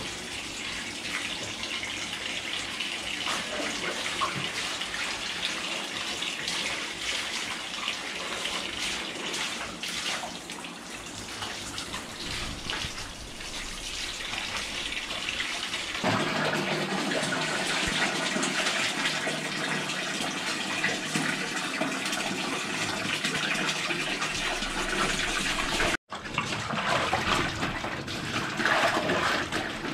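Laundry being hand-washed in a plastic basin of water: water sloshing and splashing as the wet clothes are scrubbed, squeezed and lifted.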